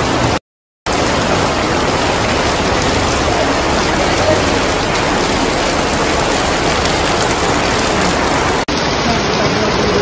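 Heavy monsoon rain pouring steadily, a dense even hiss of rain on the ground and road. The sound cuts out for about half a second near the start.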